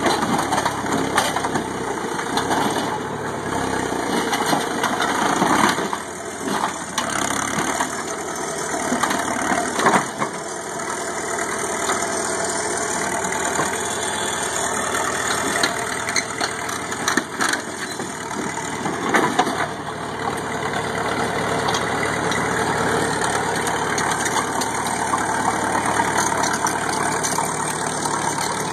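Caterpillar crawler loader's diesel engine running steadily as the machine works and moves on its tracks, with a few sharp knocks about a third and two-thirds of the way through.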